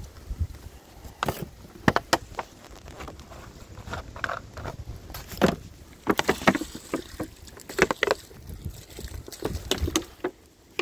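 Footsteps on dirt and dry leaves, then irregular knocks, scrapes and rustles as a bucket of clay mud and a plastic sack are handled.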